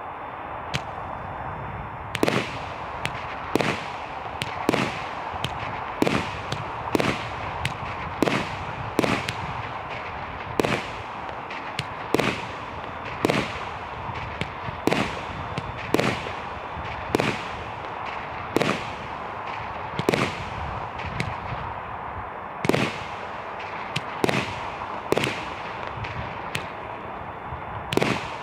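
Sovereign Fireworks 'Gold Cascade' 49-shot firework barrage firing shot after shot, about one sharp bang a second over a steady hiss, with a few shots coming closer together near the end.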